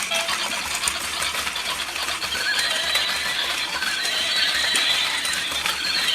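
Battery-powered toy horse making its electronic neigh through a small speaker: a wavering, high whinny, with light clicking from its walking mechanism.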